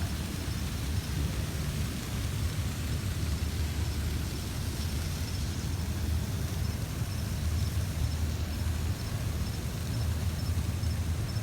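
Slow-moving freight train of intermodal cars rolling past, its wheels on the rails making a steady low rumble, with a faint, evenly repeated high ringing of a mechanical crossing bell above it.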